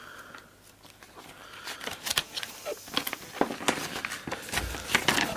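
A paper poster being unfolded and handled, its sheet crackling and rustling in irregular bursts that grow busier and louder from about two seconds in.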